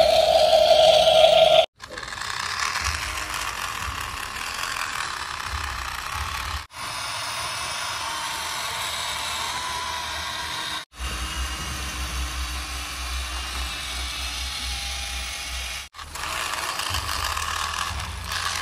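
Small electric gear motors of plastic toy RC vehicles whirring and grinding through their plastic gearboxes, with a ratchety clatter. It comes in several stretches broken by brief silent cuts, and the first stretch is a steady high whine.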